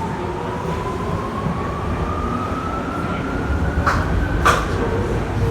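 Tokyu 8500 series electric train heard from inside the car as it accelerates: the motor whine rises steadily in pitch over a low rumble that grows louder, with two sharp clunks about four seconds in.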